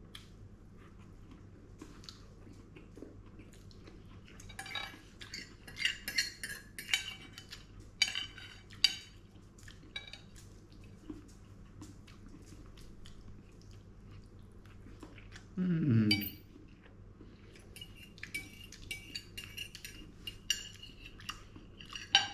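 Fork and knife scraping and clinking on a ceramic plate while cutting and eating, in scattered clusters with short ringing tones from the plate. A brief low voice sound, falling in pitch, comes about two-thirds of the way through.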